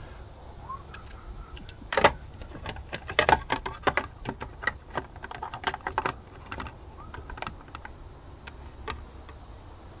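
Groove-joint pliers clicking and rattling against a boat ignition switch nut and its plastic housing as they are fitted and gripped: scattered light clicks, densest in the first half and thinning out near the end.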